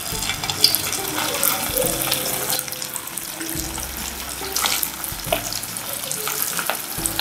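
Vegetable Manchurian balls sizzling as they deep-fry in hot oil in a kadai, a steady hiss broken by scattered crackles and pops as more balls are dropped in.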